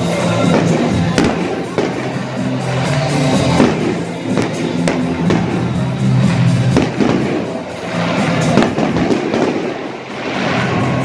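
Fireworks bursting over the stadium: a string of sharp bangs at irregular intervals, about one to two a second at the busiest, over loud music with a steady bass.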